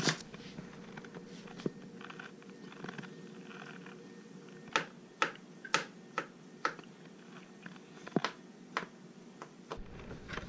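Kitchen knife chopping onion and then slicing black olives on a plastic cutting board: sharp taps of the blade striking the board, a run of about two a second through the middle and a few more near the end.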